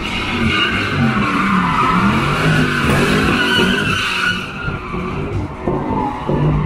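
Car drifting: its engine revs rise and fall as the tyres squeal and skid across the asphalt. The tyre squeal fades after about four seconds, leaving mostly the engine.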